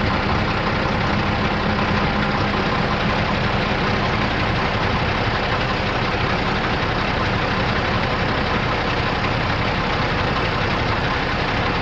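International DT466 7.6-litre inline-six turbo diesel engine of a 1996 International 4900 truck idling steadily.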